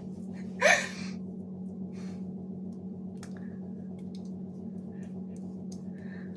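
Faint small clicks and taps of plastic press-on nails being sorted and tried against fingernails, over a steady low hum. A short breath or sigh comes about a second in.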